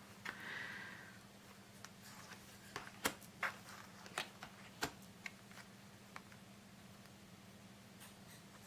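Faint, scattered taps and clicks of tarot cards being handled, with a brief soft swish shortly after the start, over a steady low hum.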